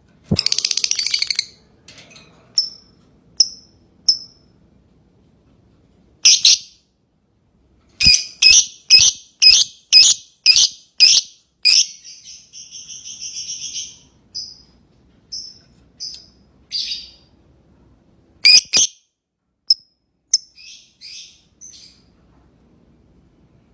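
Lovebird calling: sharp single chirps, a brief burst of rapid chattering near the start, a run of about eight loud calls about two a second around the middle, then a chattering trill of about two seconds that grows louder.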